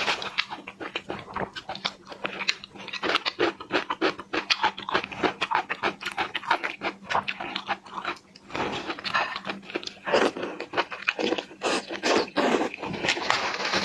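Close-up eating of Argentine red shrimp: chewing with a dense run of quick mouth clicks and crunches, broken by short pauses.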